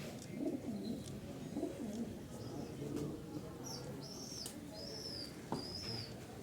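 A bird chirping repeatedly, short arched high-pitched calls coming about once a second in the second half, with low wavering sounds in the first half.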